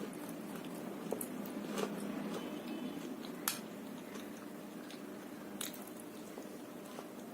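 Close-miked biting and chewing of crispy fried mini samosas, with a few sharp crunches, the loudest about three and a half seconds in.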